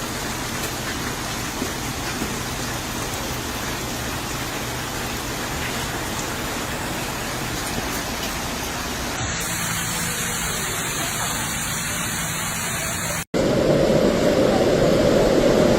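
Steady rushing noise of heavy rain and flowing floodwater, in three joined clips that change abruptly about nine and thirteen seconds in; the last is louder and deeper.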